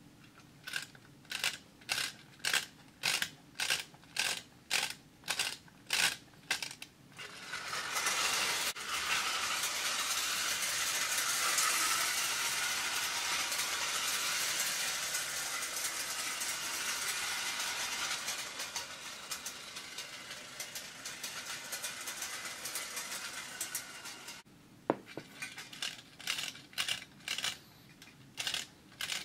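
A tinplate clockwork toy locomotive's key being wound, its ratchet clicking about twice a second. About seven seconds in, the wound-up clockwork motor whirs as the train runs on tinplate track, getting quieter as the spring runs down, then stopping. After a single click, the winding clicks start again near the end.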